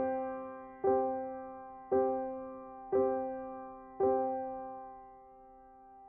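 Background piano music: the same soft chord struck about once a second, the last one about four seconds in left to ring and fade.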